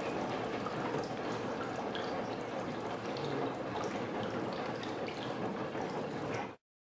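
Steady rain falling onto a puddle on concrete, a dense patter of small drops. It cuts off abruptly near the end.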